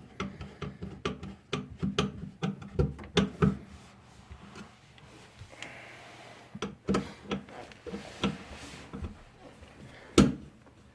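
Irregular clicks and knocks of metal parts and a screwdriver being worked on a garbage disposal's sink mounting ring, with one louder knock near the end.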